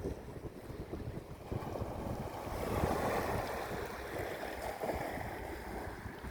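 Sea waves washing ashore, with one wave swelling and breaking about two and a half seconds in, then fading. Wind buffets the microphone throughout.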